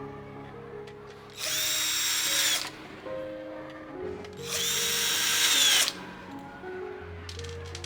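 A small handheld electric power tool run twice in bursts of just over a second, its motor whine dropping in pitch as it stops each time.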